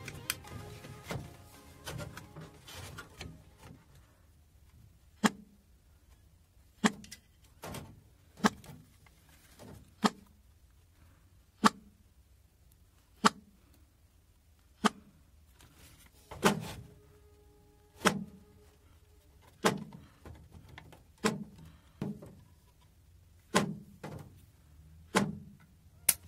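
Bluetooth speaker's driver giving a short thump about every second and a half, over and over, starting a few seconds in: the pop of the speaker cutting off and powering back up, the on-off fault that is fixed by changing its battery.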